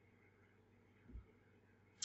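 Near silence: room tone, with one faint low thump about a second in.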